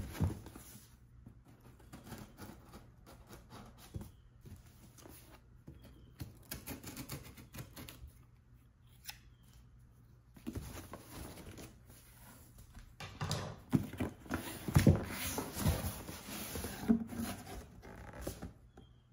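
A cardboard shipping box being cut open with scissors and handled: scattered snips, scrapes, knocks and rustles of cardboard, busiest and loudest a few seconds before the end as the lid is opened.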